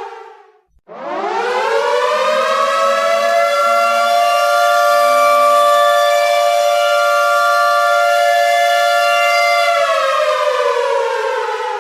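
Air raid siren wailing: a previous wail dies away, then about a second in it winds up in pitch, holds a loud steady chord of two close tones, and winds back down near the end.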